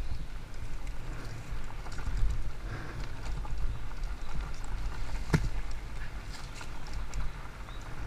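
Haibike Sduro FullFat Six fat-tyre e-mountain bike riding fast down a dirt singletrack: a steady low rumble of tyres over the ground and air rushing past the camera, with scattered light rattles and one sharp knock from a bump about five seconds in.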